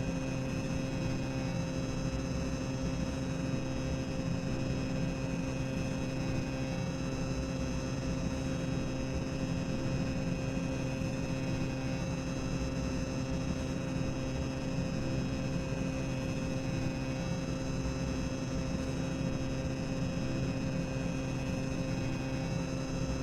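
Boiler-room ambience sound effect: a steady mechanical drone of low rumble with several constant humming tones, unchanging throughout.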